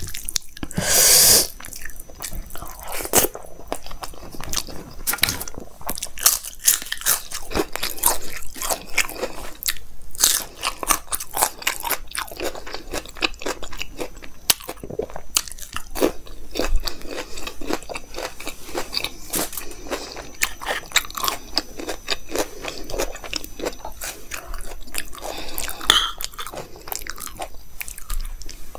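Close-miked chewing and crunching of a mouthful of food, with many short crisp mouth clicks and smacks, and a louder crunch about a second in.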